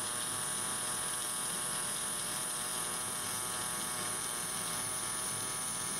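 Pulsed MIG/MAG welding arc from a Parkside PMPS 200 A1 inverter welder: a steady, even buzz with a thin high whine over it.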